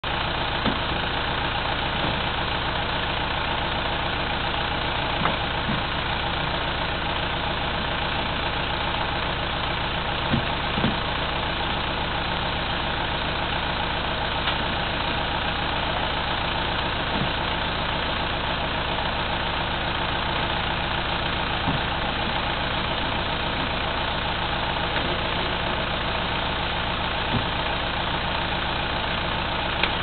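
An engine running steadily at idle, with a dozen or so short knocks or thumps scattered through it.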